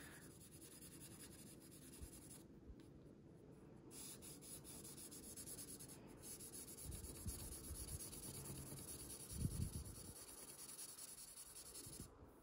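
Graphite pencil scratching faintly on paper in shading strokes, a little louder in the middle stretch.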